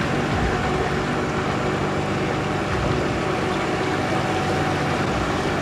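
A small river boat's motor running steadily at constant speed, with the wash of the boat moving through the water.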